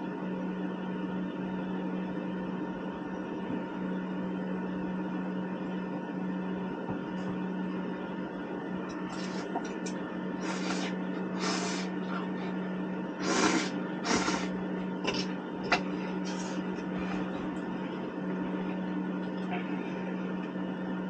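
Noodles slurped in a run of short, hissing pulls, starting about nine seconds in and lasting several seconds, the loudest near the middle, over a steady hum.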